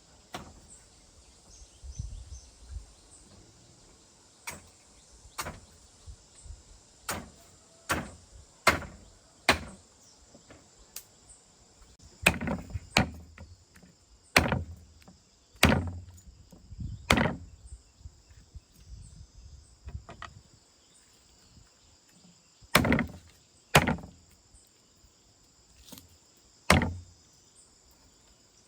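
A series of sharp chopping or knocking strokes at an uneven pace, about one a second with a pause in the middle, several carrying a dull thud. A steady high-pitched insect drone runs underneath.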